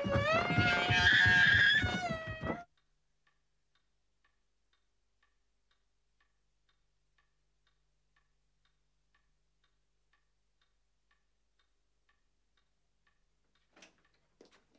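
A loud, high, wavering cry lasts about two and a half seconds and then cuts off suddenly. After it, a clock ticks faintly about once a second in a quiet room, with a few soft clicks near the end.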